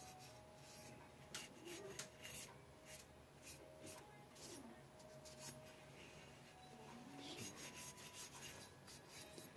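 Faint rubbing and scattered light clicks from AR lower receiver parts being handled.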